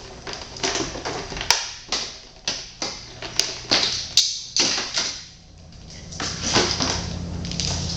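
Clicks and knocks of a battery charger and its cables and clamps being handled. From about six seconds in, a low steady hum sets in.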